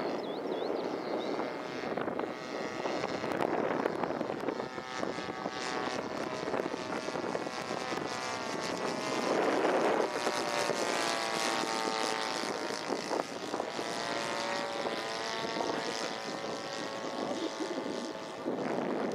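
Propeller engine of an NDN Firecracker flying past. It swells to its loudest about halfway through as the plane passes close overhead, then eases off, with the pitch wavering as it goes by.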